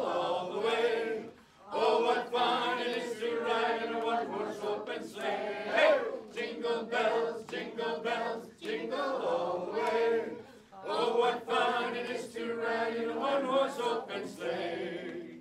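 A small group of men and women singing a Christmas song together from song sheets, in phrases broken by short pauses for breath.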